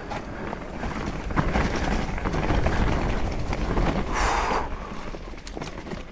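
Wind rushing over the microphone while a 29-inch-wheel mountain bike rolls fast over rough, rocky dirt trail. There is a short louder burst about four seconds in and sharp clicks and knocks from the bike near the end.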